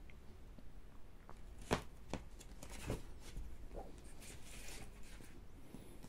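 A cardboard LP jacket and paper inner sleeve being handled: a few sharp knocks, the loudest about two seconds in, then paper rustling as the vinyl record is slid out of the sleeve.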